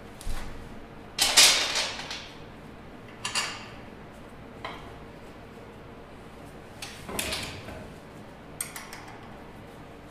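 Irregular metal clanks, knocks and scrapes as an electric motor is handled and test-fitted into a steel mounting bracket in an ATV frame. About six separate knocks, the loudest about one and a half seconds in with a brief ringing tail.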